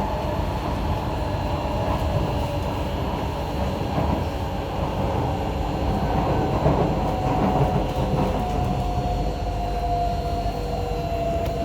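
C151A metro train running along the track, heard from inside the carriage: a steady rumble with a faint whine in it that slowly drops in pitch over the last few seconds.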